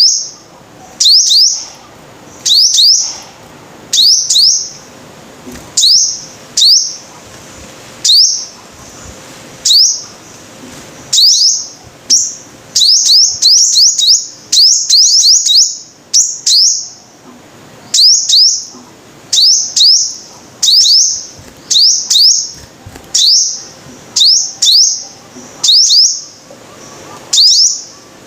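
Sunbird (the 'five-colour sunbird' of Vietnamese bird-keepers) calling: sharp, high chirps given about once a second, often in quick pairs, with a faster run of them about halfway through.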